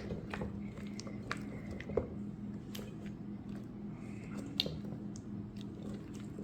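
Blue glue slime being stirred with a spoon in a bowl as borax activator works into it: soft wet squishing with scattered sharp clicks, over a faint steady hum.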